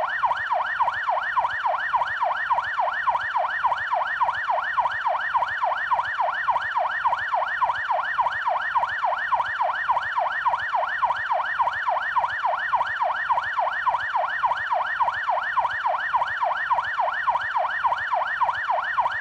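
Police siren on its yelp setting: a fast, continuous up-and-down wail repeating about three times a second.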